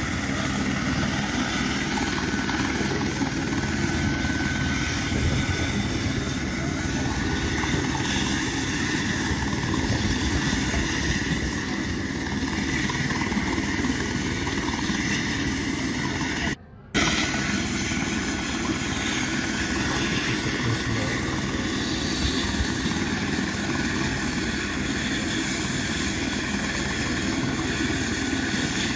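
Helicopter engine and rotor running, a steady unbroken noise that drops out for an instant about two-thirds of the way through.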